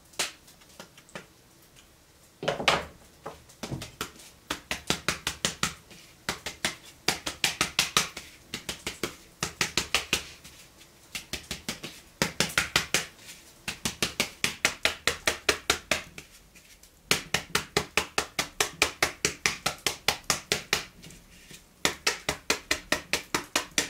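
Flour being sifted through a wooden-rimmed sieve over a steel pot: the sieve is shaken and patted by hand, making quick, even taps of about five or six a second. The taps come in runs of a few seconds with short pauses between them.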